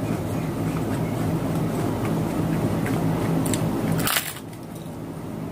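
Crisp fried wonton chip being bitten and chewed, with one sharp crunch about four seconds in as the teeth break through it. A steady low hum runs underneath until that bite.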